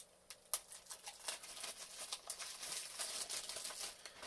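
Thin plastic wrapping crinkling and tearing as it is handled and pulled off a DVD case, a dense run of crackles starting about half a second in.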